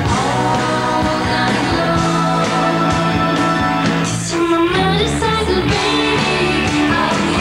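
Rock song played by a band: two women's voices singing over electric guitars and bass.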